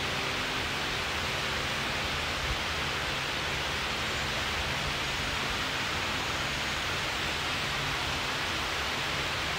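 Steady, even hiss of a wall-mounted fan blowing, with a faint low hum underneath.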